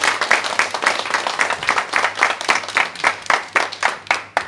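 Applause from a small group of people, the claps quick and distinct, thinning out and fading near the end.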